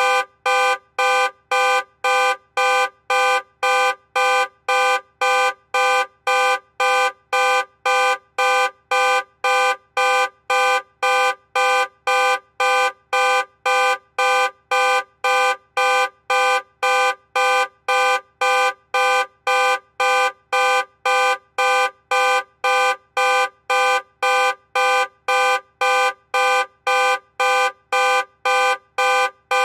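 Car alarm sounding the car horn in short, even blasts, about two a second, without a break.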